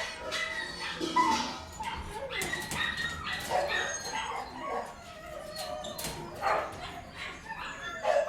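Several dogs in an indoor kennel barking, yipping and whimpering over one another in a continuous, overlapping din.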